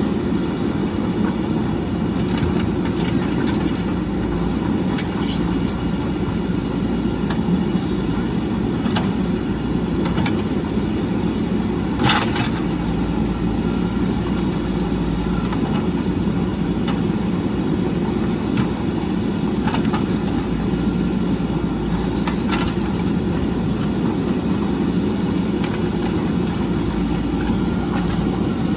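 JCB backhoe loader's diesel engine running steadily under working load, with occasional sharp metallic clanks, the loudest about twelve seconds in.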